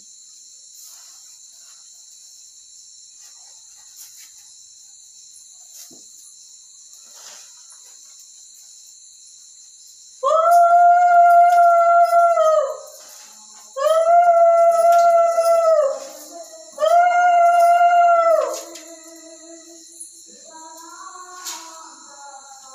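Conch shell (shankha) blown three times, starting about ten seconds in: long, steady, loud notes of about two seconds each, bending up slightly as each starts and dropping as it ends, marking the close of the puja. A steady cricket chirr runs underneath.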